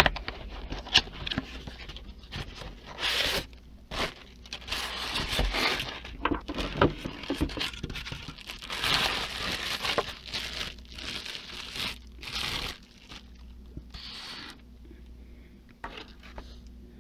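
Packaging handled while a figurine is unpacked from its cardboard box: irregular rustling, crinkling and scraping with scattered sharp clicks and knocks, quieter over the last few seconds.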